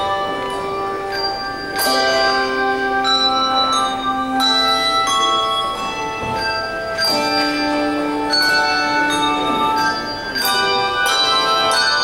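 Handbell choir playing a piece in chords, many bell notes ringing on and overlapping, with fresh chords struck about two, seven and ten seconds in.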